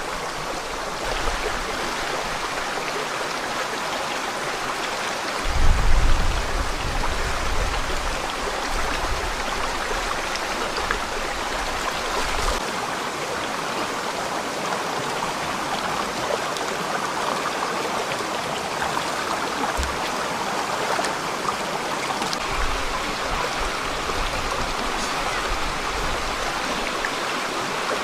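Forest stream flowing steadily, a continuous rushing of water, with a brief low rumble about six seconds in.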